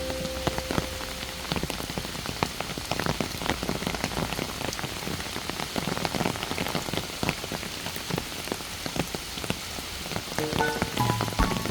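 Steady rainy-season downpour, a dense patter of many raindrops striking close by.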